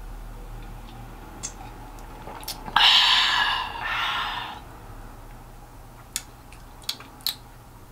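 A person's loud, breathy noise lasting a second and a half to two seconds, with a few small sharp clicks before and after it.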